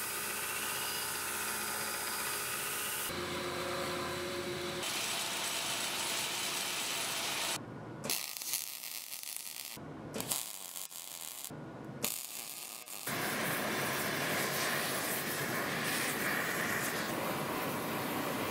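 Belt grinder running with a small steel part held against the belt, a steady hum with a few fixed tones. After about three seconds the sound changes abruptly several times to other shop noise: a stretch of noise broken by short gaps in the middle, then steady noise.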